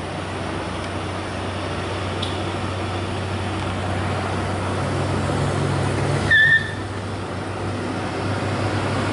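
A vehicle engine drones steadily on the hill road, growing slightly louder, with one short horn beep about six seconds in.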